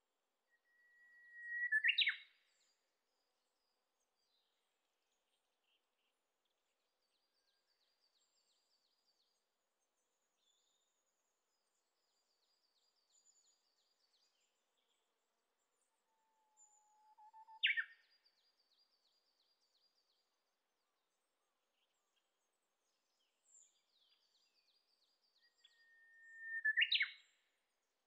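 Japanese bush warbler singing its "hō-hokekyo" song three times: each time a long clear whistle held on one pitch, then a quick rising flourish. The middle song starts on a lower whistle. Faint high trills from other birds fill the gaps.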